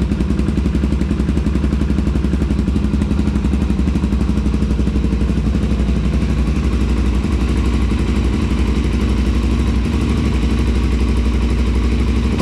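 Suzuki DR-Z400SM's single-cylinder four-stroke engine idling steadily, freshly started after an oil change and coolant top-up.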